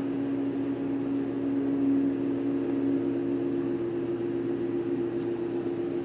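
A steady machine hum made of a few even, unchanging low tones.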